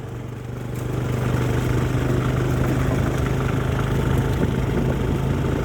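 A motor vehicle's engine running steadily at a low speed, getting louder about a second in and then holding even.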